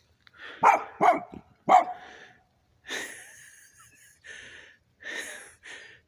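A dog barks three times in quick succession, loud and close, about a second in. It is followed by several softer breaths with a hiss, the heavy breathing of the person holding the phone.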